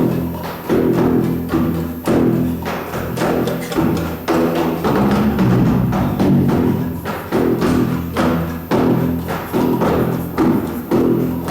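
Music with sustained low pitched tones over a steady beat of percussion strikes.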